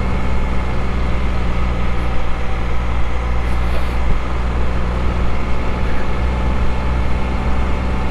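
Can-Am Spyder three-wheeler's engine running steadily while cruising at a low, even road speed, with a constant rush of wind and road noise.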